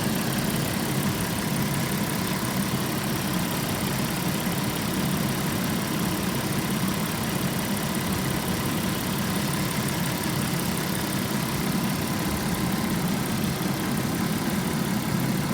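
Volkswagen Passat B5.5 V6 engine running steadily with an odd noise that the owner describes as trumpeting or rubbing.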